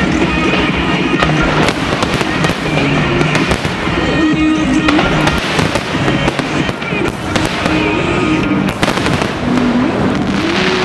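Aerial fireworks display: many shells bursting and crackling in quick succession, with music playing alongside.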